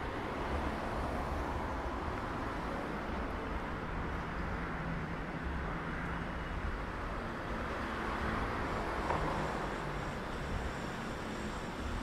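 City street ambience with road traffic: a steady rumble of passing vehicles, with a faint high-pitched whine joining near the end.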